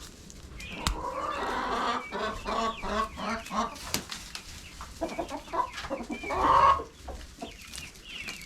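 A flock of hens clucking, many short overlapping calls, as they go for ears of corn tossed to them. One sharp click about a second in, and a louder call about six and a half seconds in.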